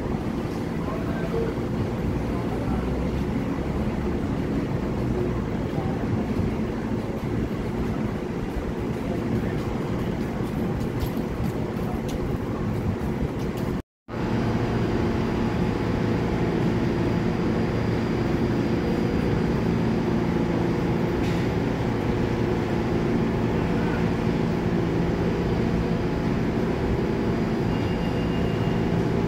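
Steady rumble and hum of an elevated subway line with a train in the distance, with a few faint steady whines through it. The sound drops out for a moment about halfway through.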